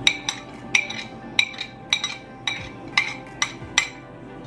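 Metal spoon tapping against a stainless steel mixing bowl to knock minced garlic off it: about a dozen sharp clinks, two or three a second, each ringing briefly.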